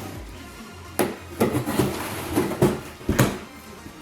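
Cardboard shipping box being handled and opened: sharp knocks and scraping of cardboard, the loudest about a second in and just after three seconds.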